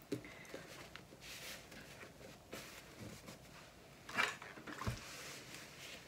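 Fabric and zipper tape rustling faintly as hands smooth the sewn zipper compartment flat, with a brief louder rustle about four seconds in and a soft thump just after as the iron is brought down onto the fabric.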